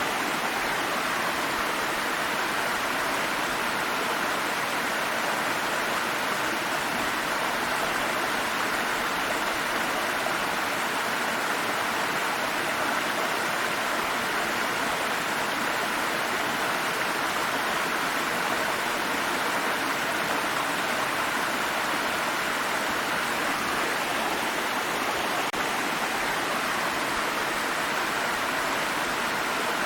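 Waterfall: water falling and rushing in a steady, unbroken hiss, strongest in the mid-high range, with no change over time.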